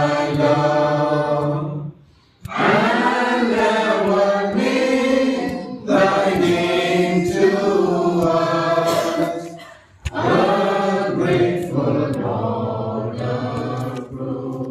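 A congregation singing a hymn together in long, held phrases, with short breaks between phrases about two and ten seconds in.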